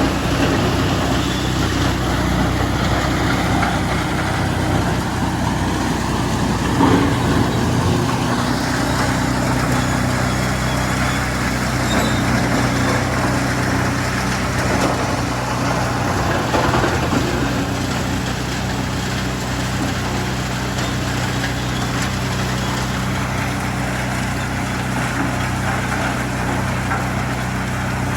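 Big tractor-driven Heizohack wood chipper working steadily through logs: the tractor engine holds a constant low note under the rough, continuous noise of the chipping.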